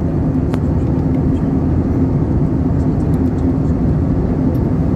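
Steady cabin noise inside an Airbus A321 on descent: the rush of airflow and the drone of its IAE V2500 engines, with a steady hum underneath. A faint click about half a second in.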